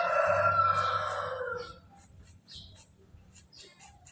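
A rooster crows once, a loud, drawn-out call that ends a little under two seconds in. After it come faint, short scratchy sounds of gloved hands working wet cement mortar.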